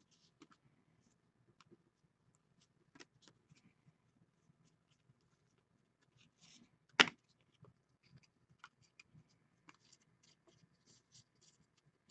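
Football trading cards being flipped through and shuffled by hand: faint scattered card flicks and rustles, with one sharp snap about seven seconds in.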